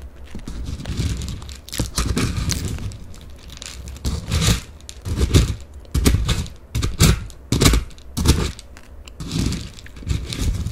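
Plastic snack wrapper crinkling and crunchy Batdureong corn puffs being bitten and chewed, a run of sharp crunches in the middle between stretches of wrapper rustle.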